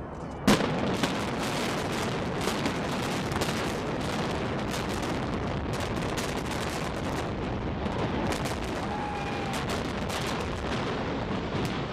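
Demolition charges detonating as a concrete domed stadium is imploded: one sharp blast about half a second in, then a rapid crackling series of many shots over the continuous noise of the collapse.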